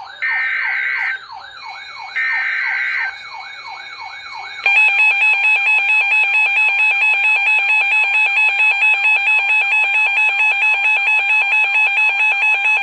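Emergency Alert System header data tones: two shrill one-second bursts with a falling warble repeating beneath them. About five seconds in, the loud, steady two-tone EAS attention signal starts and keeps sounding.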